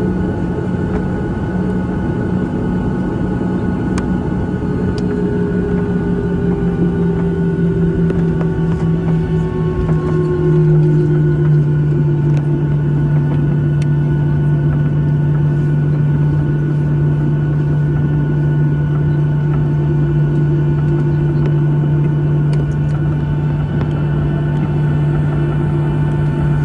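Boeing 737-800's CFM56-7B jet engines at taxi power, heard inside the cabin as a steady low hum and rumble. About ten seconds in, the hum drops a little in pitch and grows slightly louder.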